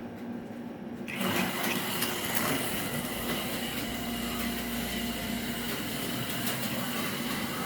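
HO slot car on an HP7 chassis running on the track: a small electric motor whining and the car rattling along the slot. It starts up suddenly about a second in.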